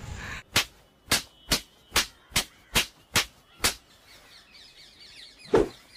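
Eight sharp, evenly spaced knocks, about two and a half a second, then birds chirping, with a single thump near the end.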